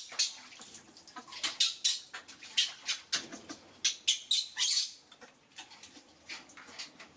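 Newborn baby monkey squeaking in short, high cries while being washed in a steel basin of water, with light water splashing under the hands.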